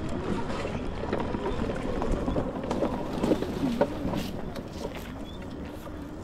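Car driving slowly over a rough dirt track: the engine note wavers up and down over a low rumble, with knocks and rattles from the bumps.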